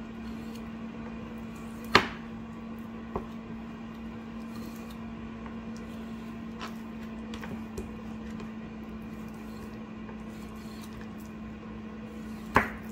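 Chef's knife cutting through raw chicken wings on a wooden cutting board, the blade knocking sharply on the board about two seconds in and again near the end, with a smaller knock and a few faint taps between. A steady low hum runs underneath.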